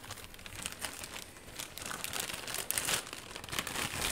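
Plastic mailer packaging crinkling and rustling as it is handled and the wrapped item is pulled out. The crinkling comes and goes unevenly and is loudest about three seconds in.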